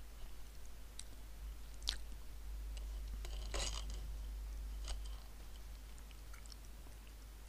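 A few faint, scattered clicks, the sharpest about two seconds in, and a brief crackly rustle a little after the middle, over a low steady hum.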